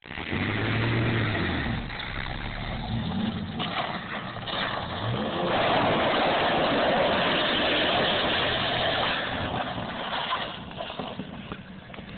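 Compact pickup truck's engine revving up and falling back several times as it pulls away and drives off, over a steady rush of noise.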